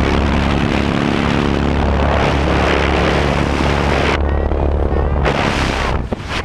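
Loud rush of wind and the steady drone of a single-engine plane's propeller through the open jump door, easing off just before the end.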